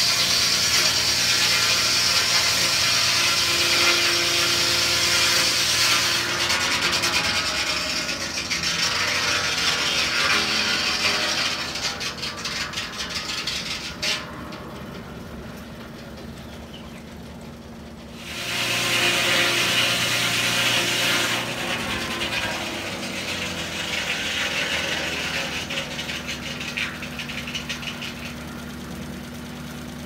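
Large circular sawmill blade cutting through a log, driven by a 1936 Buick straight-eight engine that runs steadily underneath. The cutting noise eases off about twelve seconds in, leaving mainly the engine, and a second cut starts about eighteen seconds in, then fades toward the end.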